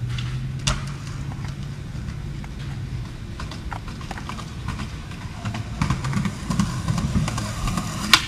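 Skateboard rolling on concrete: a sharp clack of the board landing less than a second in, then the wheels rumbling and clicking over seams. The rattle grows busier later on, and a loud sharp clack of the deck comes just before the end.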